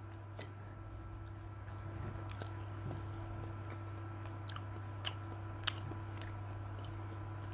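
A person chewing a mouthful of prawn sushi, with soft wet mouth clicks and two sharper clicks about five and five and a half seconds in, over a steady low hum.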